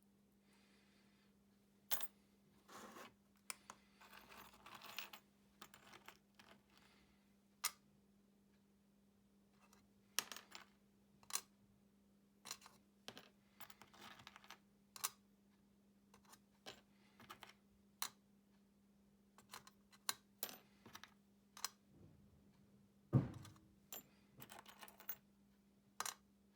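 Irregular light clicks and clinks of small hard objects being handled, with a few short clattering runs and one louder knock a little before the end, over a faint steady hum.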